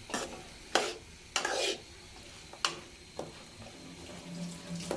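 A spoon scraping and knocking in a pan as boiled chickpeas with spices are stirred: about six strokes, one a longer scrape, over a faint sizzle.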